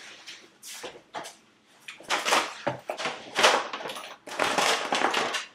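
Clear plastic wrapping crinkling and rustling in a series of short bursts as it is handled.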